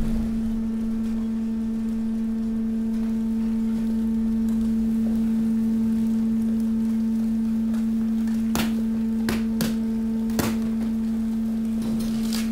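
Hydraulic waste press's power unit running with a steady, even hum. A few sharp clicks sound from the loaded hopper about two-thirds of the way in.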